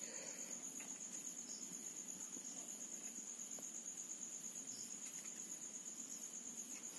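Faint crickets chirping in the background: a steady high trill with an even pulse, and a few faint light taps.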